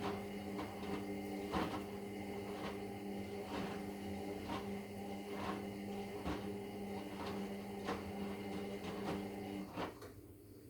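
Indesit EWD71452 washing machine tumbling a small load slowly, its brushed motor humming steadily, with light knocks about once a second. Near the end the motor cuts off and the drum stops.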